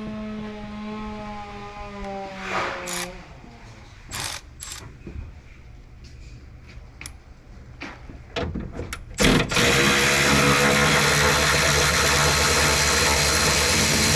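A held tone sagging slowly in pitch opens, followed by scattered clicks and knocks. About nine seconds in, an electric ratchet starts and runs loud and steady, driving a fastener on the truck's headlight mounting.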